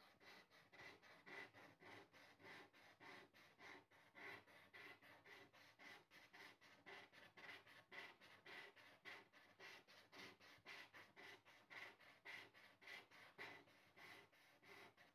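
A folded strip of sandpaper rubbed by hand inside a cut slot in a wooden board, sanding its edge in rapid back-and-forth strokes, about four a second, with a steady rhythm.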